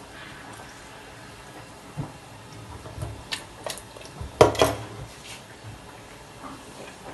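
Pieces of salt cod being rubbed with lime by hand in a stainless steel bowl, the metal bowl knocking and scraping against the stainless steel sink in a short clatter, loudest about four and a half seconds in.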